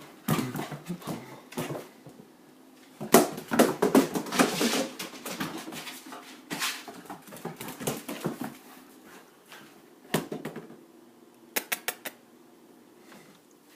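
A dog playing with a ball: a dense run of scuffling clicks and knocks about three to five seconds in, and a quick series of sharp clicks near the end.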